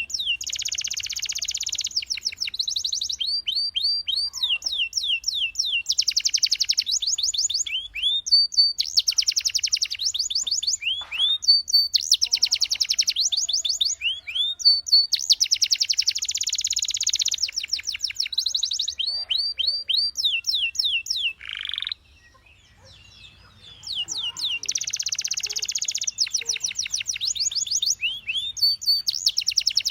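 Domestic canary singing: fast trill phrases of repeated down-sweeping notes alternating with dense rolling tours, with a short pause about three-quarters of the way through.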